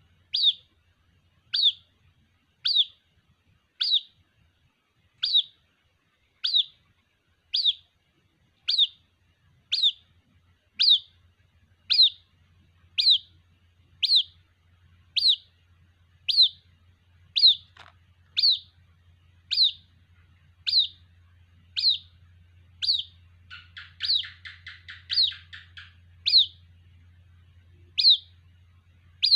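White-breasted waterhen chick calling for its mother: a sharp, high, downward-slurred peep repeated about once a second. Near the end a faster run of fainter chattering notes comes in briefly, over a faint low hum.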